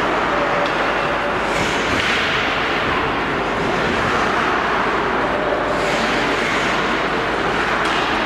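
Hockey skate blades carving and scraping on rink ice over a steady, loud background rumble, with sharper hissing scrapes about two seconds in, near six seconds and near the end.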